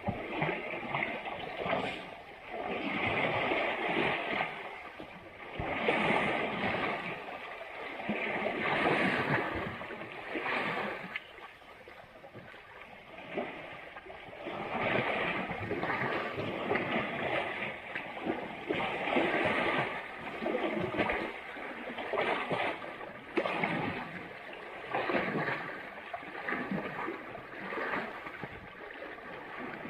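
Asian elephants splashing and sloshing water and mud in a river, coming in irregular surges every second or two.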